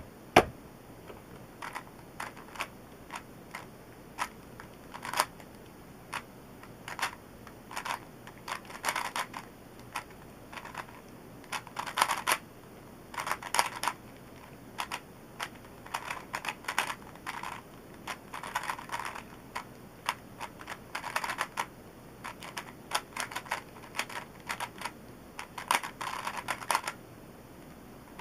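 Original Rubik's Cube, lubed with Maru lube, being turned fast in a speedsolve: irregular bursts of rapid plastic clicking and clacking as the layers turn. There is a single loud knock right at the start.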